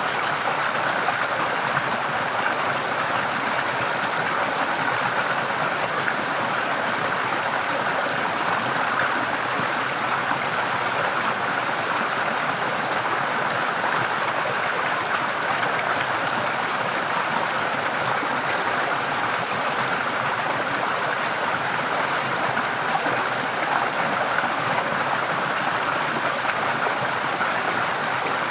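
Forest stream flowing steadily: a continuous, even rush of water.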